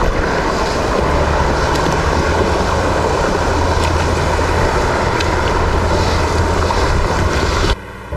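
Shallow stream riffle rushing steadily over rocks, heard up close. It cuts off suddenly near the end, leaving a quieter low hum.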